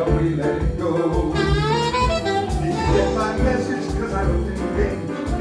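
Jazz combo playing an instrumental break: a saxophone solo over piano, bass and drums.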